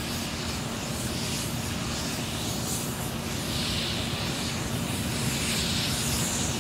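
Fire engines' engines running with a steady hum, under a continuous rushing hiss from the burning truck and the hose spray.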